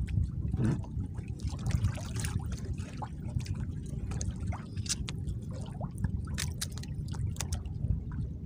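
Sea water lapping and sloshing against a small outrigger boat, with scattered light clicks and taps from longline fishing line and hooks being handled.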